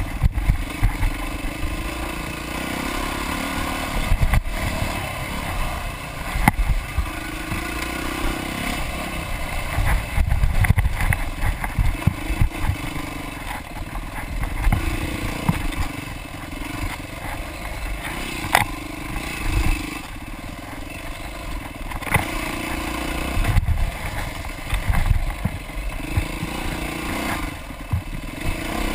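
Dirt bike engine heard close up from the bike, revving up and down again and again as it is ridden along a rough wooded trail, with frequent sharp knocks and clatter from the bike jolting over the ground.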